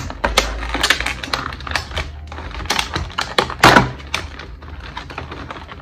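Stiff clear plastic blister packaging being pried and bent apart by hand, crackling and clicking in quick irregular snaps, with a louder crack a little over three and a half seconds in.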